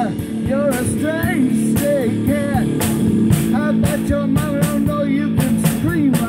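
Live rock music: an electric guitar and a drum kit playing on between sung lines, with short bending phrases over a steady beat.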